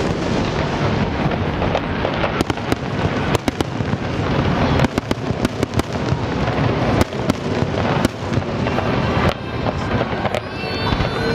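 Fireworks display: a dense, continuous run of bangs and crackles from many shells bursting in quick succession over a steady rumble.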